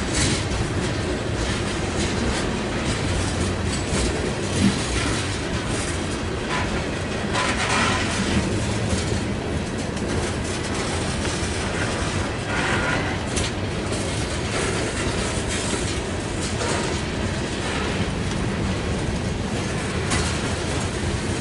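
Loaded coal hopper cars of a freight train rolling past: a steady rumble with wheels clicking over the rail joints, a sharp knock about five seconds in, and a couple of brief scrapes.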